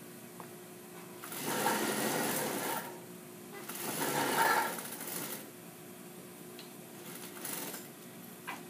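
Industrial sewing machine stitching a seam in two runs of about a second and a half each, with a shorter, quieter run about seven seconds in.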